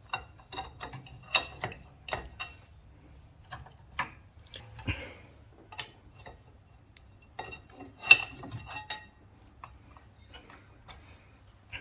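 Sharp metallic clicks and clinks from a BMW 320i E90 rear brake caliper being pivoted up and the old brake pads being slid out of the carrier, coming in irregular clusters with the loudest clink about eight seconds in.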